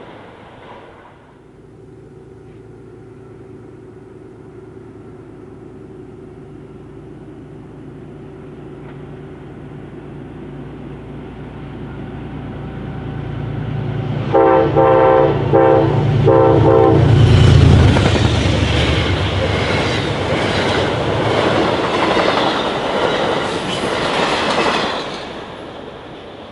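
A train approaching with a low running drone that builds steadily. It sounds its multi-tone horn in a few short blasts, then passes at speed with a loud rush and wheel clatter that fades away near the end.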